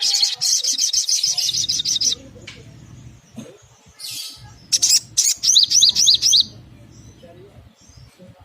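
Olive-backed sunbird calling: a fast, high-pitched trill of rapidly repeated notes for about two seconds, then after a pause a short rasp and a run of quick, high, hooked chirps that end a little past six seconds in.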